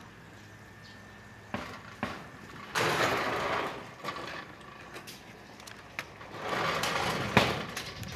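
Aluminium sliding screen door rolling along its track, twice, each pass lasting about a second, the second ending in a sharp knock as the door meets the jamb.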